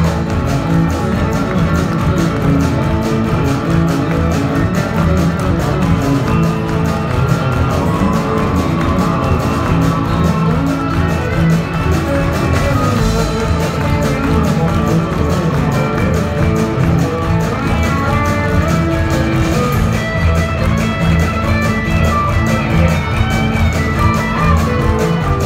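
Live country-rock band playing with electric guitars, acoustic guitar and accordion over a steady beat, heard from the audience in a theatre.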